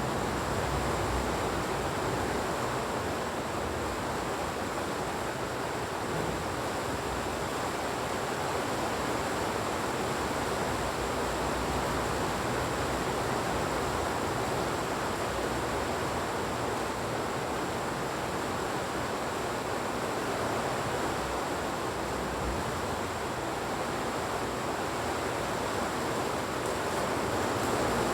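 Heavy rain falling as a steady, even hiss, with a faint constant high tone above it.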